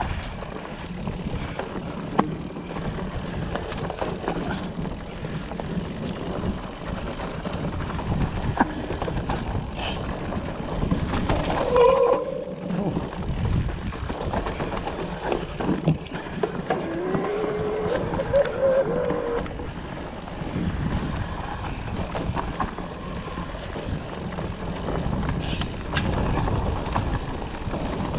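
Specialized Turbo Levo electric mountain bike riding down a dirt forest trail: a steady rumble of tyres on dirt and leaf litter, with frequent knocks and rattles from the bike over bumps. A couple of brief wavering tones come partway through.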